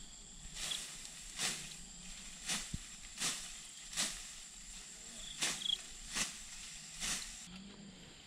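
Bamboo grass stems swishing and rustling in about nine short, sharp strokes as they are cut and pulled by hand.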